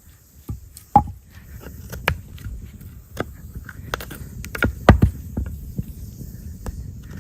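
Irregular knocks and taps of a log being hand-worked with cutting tools, with two heavier thuds, one about a second in and one about five seconds in.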